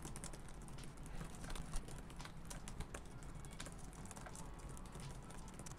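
Typing on a Microsoft Surface Laptop 4's keyboard: a quick, irregular run of faint key clicks. The keys are soft and not clicky.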